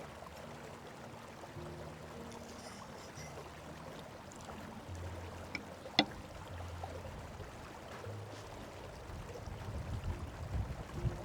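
Steady rush of a flowing river with soft background music underneath, one sharp click about six seconds in, and low rumbling building near the end.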